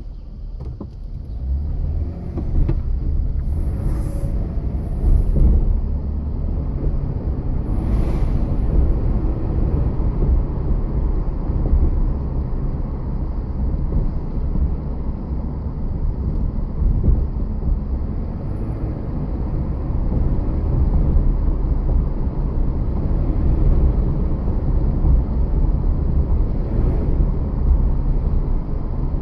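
2009 Jeep Wrangler JK on the move: a steady low rumble from the vehicle, with brief faint high-pitched squeals about four seconds in and again around eight seconds in.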